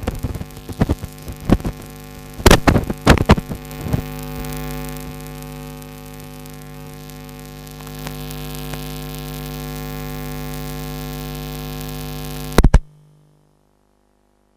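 Steady electrical hum from the PA system through the stage microphone, with a run of loud knocks and pops in the first few seconds. Two more sharp pops come near the end, then the sound cuts out.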